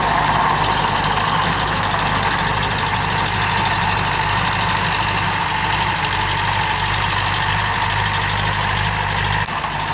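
TAFE 5900 DI tractor's diesel engine running steadily under load while pulling a rotary tiller, its blades churning dry soil.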